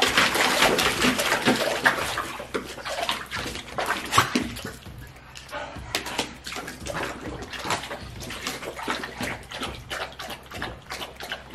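A dog splashing and lapping at the water in a shallow plastic kiddie pool: heaviest splashing in the first couple of seconds, then a long run of quick, wet laps.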